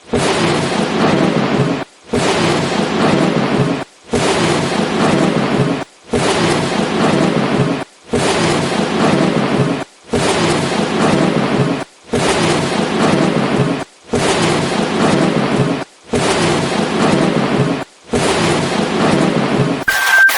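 A rumbling, rain-and-thunder-like noise effect repeats in blocks of about two seconds, with short silent gaps between them, about ten times. Near the end a brief high beep sounds, and the sound switches to rapid clicking.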